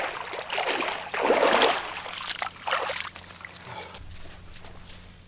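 Water splashing and sloshing in irregular bursts, loudest about a second and a half in and dying away after about four seconds.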